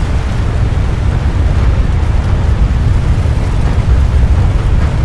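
Sound-designed tsunami surge: a loud, steady, deep rumble of rushing water.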